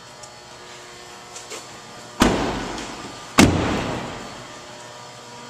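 Doors of a 2008 Ford F-150 crew cab slammed shut twice, about a second apart, each slam trailing off briefly.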